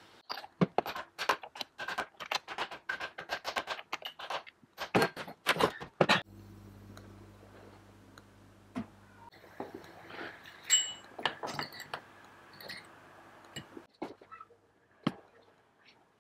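Rapid metallic clicks, clinks and knocks of hand tools and engine parts being handled on a steel workbench during reassembly of a two-stroke kart engine. About six seconds in, a low steady hum runs for about three seconds, followed by scattered clicks again.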